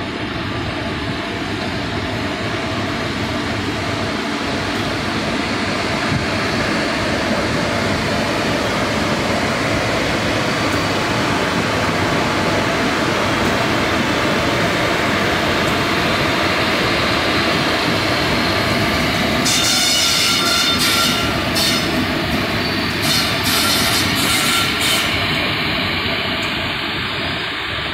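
Electric locomotive hauling loaded goods wagons past: a steady loud rumble of wheels on the track and running gear. From about twenty seconds in come several short high-pitched wheel screeches.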